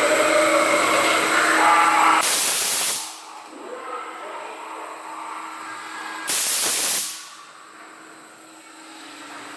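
Two sudden hissing blasts of compressed air, each lasting under a second, about four seconds apart, like the air-jet scare effects of a ride-through haunted house. A steady hum runs beneath them.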